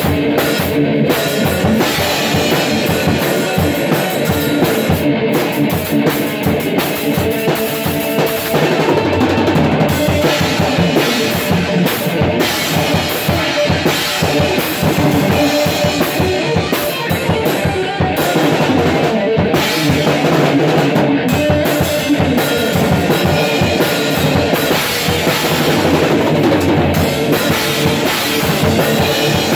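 Live rock jam: an electric guitar played through an amplifier together with a drum kit, bass drum and snare driving a steady beat.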